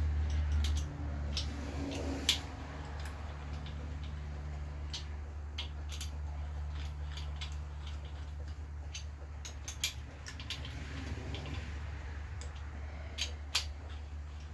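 Light, irregular metallic clicks of a speed wrench and socket running down the crankshaft main bearing cap bolts on a GM 4.3 V6 block, over a steady low hum.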